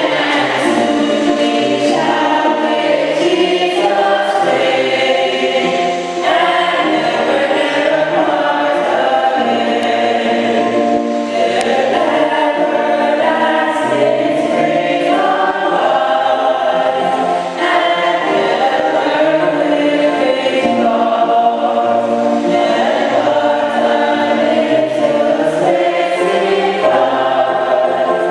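Choir singing a hymn in parts, sustained held chords changing every second or so.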